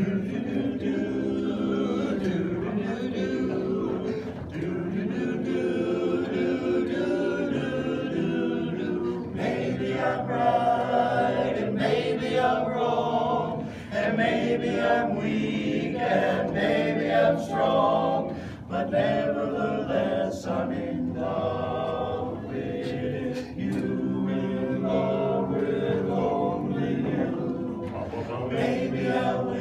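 Men's chorus singing a cappella in close harmony, several voices sustaining chords together, with brief breaths between phrases.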